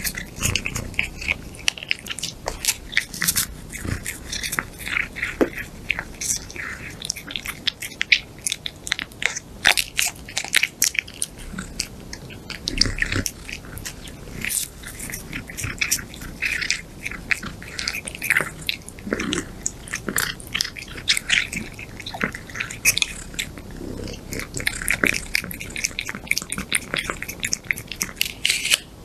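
A cat eating soft food off a spoon held to its mouth: quick, irregular wet smacking and licking clicks, several a second, without a pause.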